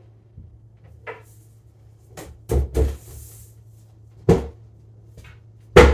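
Cabinet doors of a bookcase being shut: a few knocks and thuds, a double thump about two and a half seconds in, and the loudest knock near the end.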